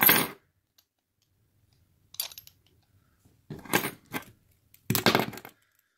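Key being pushed into and pulled out of a padlock's spring-loaded keyway, giving short metallic clicking and rattling bursts: one at the start, a faint one about two seconds in, and two louder ones a little before and after five seconds.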